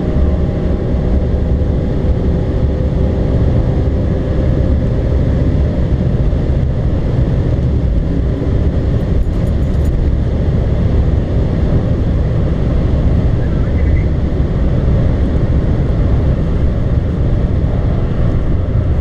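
Inside the cabin of a DMS-remapped BMW E60 M5 at around 160 mph: the V10's high-revving drone through the first few seconds, then a steady heavy rumble of wind and road noise with the engine underneath as the revs and speed fall in seventh gear.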